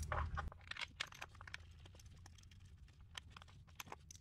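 Light, irregular metallic clicks and taps as intake manifold bolts are handled and threaded in by hand. A low background hum stops about half a second in.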